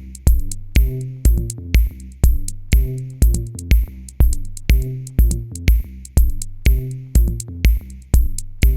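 Electronic background music with a steady drum-machine beat, about two kicks a second, over a bass line.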